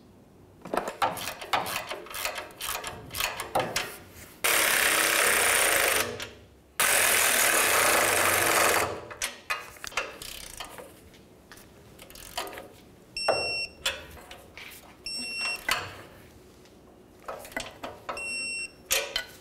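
Exhaust flange nuts being run down on their studs: ratchet clicking, then a power ratchet running in two steady bursts of about two seconds each. Near the end an electronic torque wrench gives three high beeps as each nut reaches its 20 foot-pound setting.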